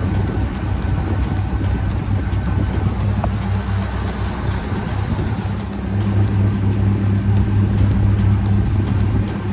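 Outboard motor of a small aluminium fishing boat running steadily at speed, a low drone over the rush of wind and water. The drone grows a little louder about six seconds in.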